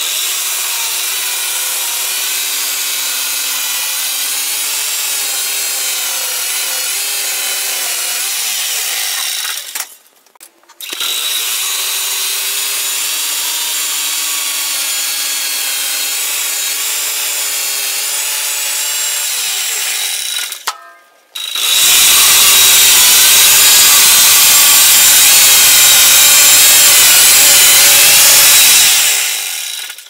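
Homemade gasoline-engine band sawmill running steadily as its blade cuts through a hickory log: a constant engine hum under a high saw hiss. The sound breaks off abruptly about ten and about twenty-one seconds in, and the last stretch is louder and hissier.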